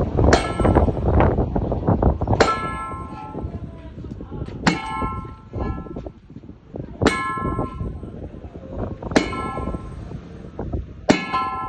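Hammer striking metal, six evenly spaced blows about two seconds apart, each leaving a bright metallic ring.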